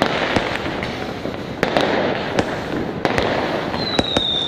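Fireworks going off at close range: a continuous crackling with many sharp bangs at irregular intervals, and a high whistle sliding slightly down that starts near the end.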